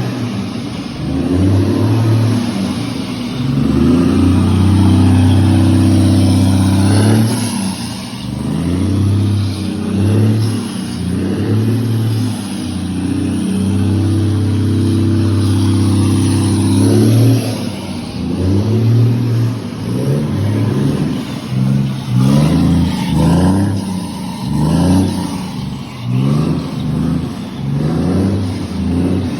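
Scania truck's diesel engine revving, held at high revs for several seconds at a time and then blipped in quick short bursts near the end.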